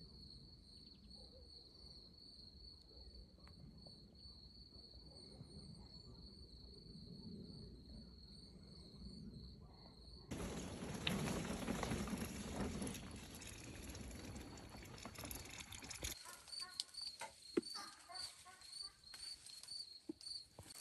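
Crickets chirping in a steady, fast pulsed trill. About halfway through, a louder rushing noise comes in and eases off after several seconds. Scattered ticks and knocks follow near the end while the chirping goes on.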